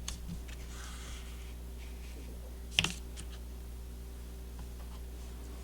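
Handling noises of an Apple Watch and its silicone sport band: a few light clicks and a brief soft rustle, then one sharp click just under three seconds in.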